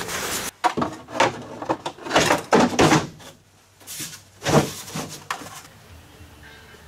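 Rigid molded panel being shifted and worked into place: a run of scrapes, rubs and knocks, several loud ones in the first three seconds and another cluster about four and a half seconds in, then quieter.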